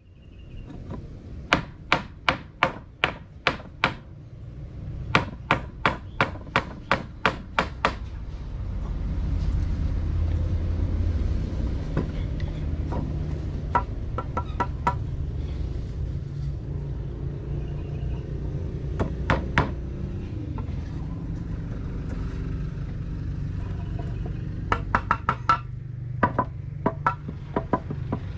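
Hammer driving nails into a wooden lumber frame: runs of quick strikes, about three a second, in several bursts, with a steady low rumble underneath from about eight seconds in.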